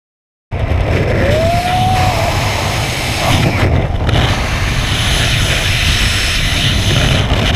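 Freefall wind rushing over a skydiver's action-camera microphone: a loud, steady rush that starts abruptly about half a second in. A short rising tone cuts through it about a second in.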